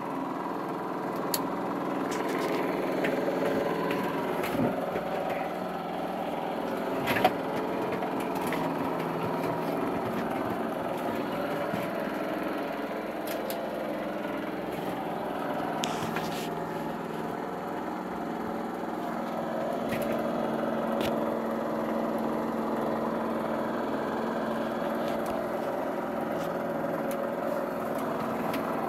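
Bedini-style pulse motor generator running steadily: an even mechanical whir with a steady hum, and one brief knock about seven seconds in.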